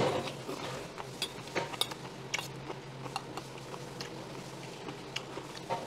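Metal spoon clinking and scraping against a stainless steel bowl of barley rice and young radish kimchi, in irregular light clicks. A steady low hum runs underneath.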